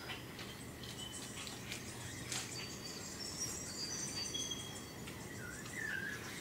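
Faint outdoor wildlife ambience: short, thin, high-pitched chirps and whistles, several overlapping, over a low steady background hum. About five and a half seconds in, a wavering warbled call. A few soft clicks.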